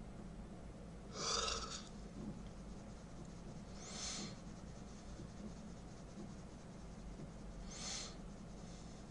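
A person breathing audibly close to the microphone: three short breaths, about a second in, about four seconds in and near the end, over a steady low hum.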